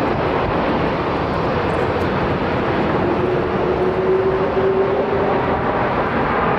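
Jet airliner engines running: a steady, loud rushing noise with a faint humming tone in it that grows stronger midway.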